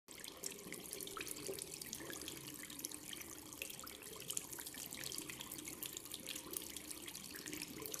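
Water trickling and splashing steadily from a small homemade tabletop fountain: a thin stream falling from an upturned oil lamp into a clay dish and bowl below, with a constant patter of small splashes.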